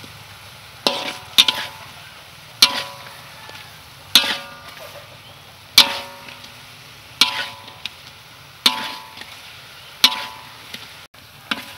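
Metal spoon striking and scraping a metal wok while turning fried chicken in bubbling sauce: sharp clinks about every second and a half, each ringing briefly, over faint sizzling.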